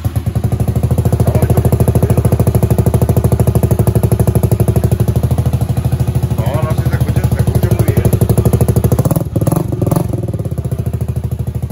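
Italika 150cc single-cylinder four-stroke motorcycle engine idling through an aftermarket ED Racing sport muffler with its dB-killer silencer insert still fitted: a loud, steady, even exhaust pulse. The level dips briefly about nine seconds in, then the idle carries on a little quieter.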